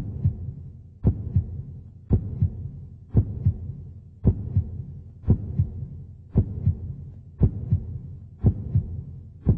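A slow, heartbeat-like pulse: a strong low thump about once a second, each followed by a softer one, over a steady low hum.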